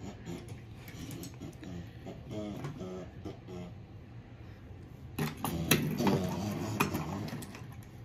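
Plastic toy trucks clattering and knocking as they are handled, with a burst of sharp clicks and knocks about five to seven seconds in, the loudest part. A child's quiet voice is heard faintly in the first few seconds.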